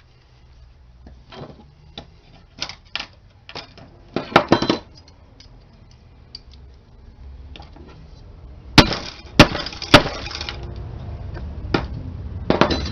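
Small plastic and metal parts of a disassembled Zip drive clicking and clattering as they are handled and pulled apart, with three loud sharp knocks about nine to ten seconds in, each about half a second after the last.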